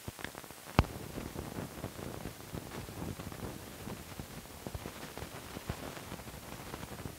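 Surface noise of an old film print's soundtrack: a steady hiss full of crackle and scattered pops from dirt and scratches on the film, with one loud pop about a second in.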